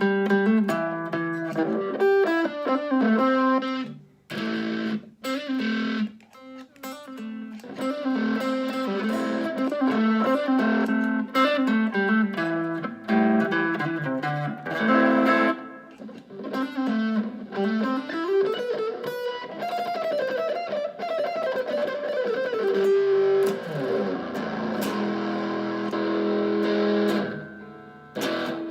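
Electric guitar, a Fender Stratocaster, played through effects: single-note melodic phrases of plucked notes, broken by short pauses early on, with a long slide up and back down in pitch past the middle.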